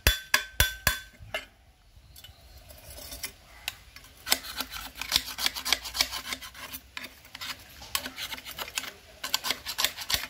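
Steel screwdriver scraping carbon deposits out of a two-stroke three-wheeler's exhaust pipe and silencer, metal grating on metal in rapid strokes. A few sharp, ringing metallic taps come in the first second, and after a short lull the scraping builds into a dense run of strokes.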